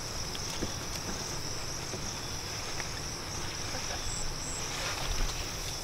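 Insects droning in a steady, high-pitched chorus, with two short higher chirps about four seconds in, over a low rumble.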